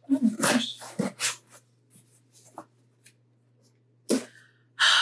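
Cardboard box being handled and turned over: a cluster of short rustles and scrapes in the first second and a half, then two more near the end.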